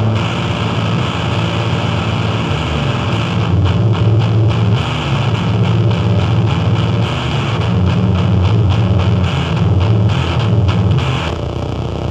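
Loud live noise music: a dense wall of distorted sound over a heavy, shifting low drone. About three and a half seconds in it is broken up by rapid stuttering cuts, and it thins briefly just before the end.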